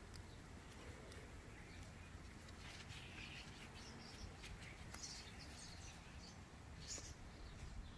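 Faint birds chirping in the background over a low rumble, with a few light metallic clicks of a bicycle chain being handled as a quick link is fitted.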